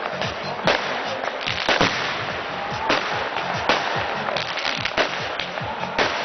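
Fireworks going off in rapid succession: a dense run of sharp bangs and cracks over a continuous crackling hiss.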